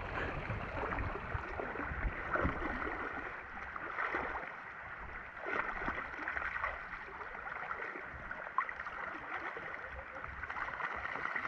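Shallow river water sloshing and lapping as a man wades and a Rottweiler swims alongside him, with small splashes every few seconds.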